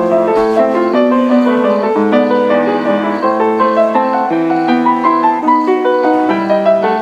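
Grand piano being played: a flowing melody of quick notes over held lower notes.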